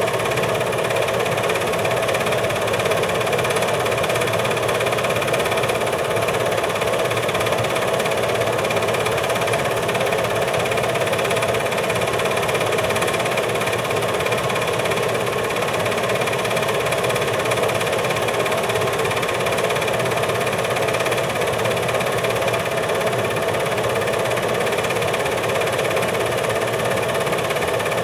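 Steady mechanical whir with a constant hum, with no change or break: the running sound of an 8mm film projector.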